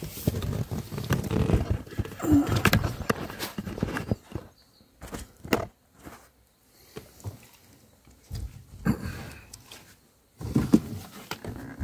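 Camera handling noise as the camera is picked up, turned round and set down: irregular rustling and scraping with several sharp knocks.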